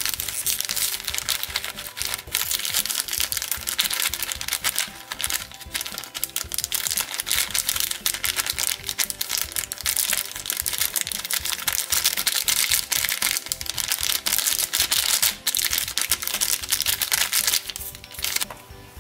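Clear plastic zip bag crinkling as small foam beads are poured out of it onto slime, a dense crackle of tiny clicks and rustle that stops shortly before the end. Background music plays underneath.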